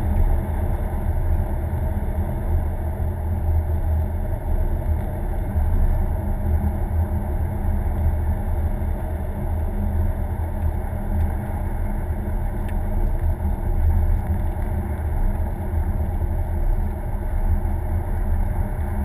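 Car driving at a steady speed heard from inside the cabin: a steady low rumble of engine and road noise.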